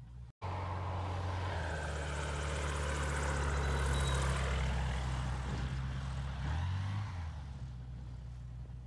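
Rans S-7 Courier light aircraft flying low past, its engine and propeller drone swelling to a peak about four seconds in as it goes by, then fading away after about seven seconds.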